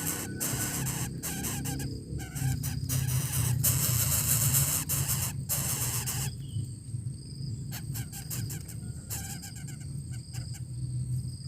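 Bird calls over a steady low hum, with crackling clicking noise in the first half.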